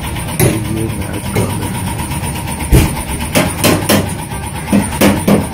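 A motor vehicle's engine running steadily, with irregular sharp knocks and clatter over it, most of them in the second half.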